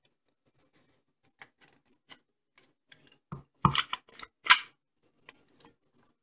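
Polymer Slide Fire stock being worked onto an AR-15 rifle's buffer tube: a string of light plastic clicks and scrapes, with two louder knocks about three and a half and four and a half seconds in.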